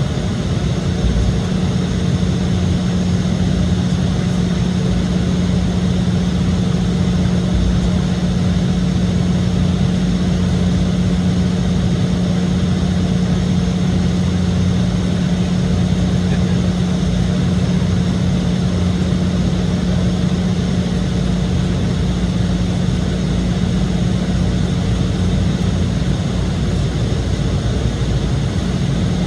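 Steady cabin noise inside an Embraer E-175 jet: its General Electric CF34-8E turbofan engines and the airflow make an even rush with a steady low hum, unchanging throughout.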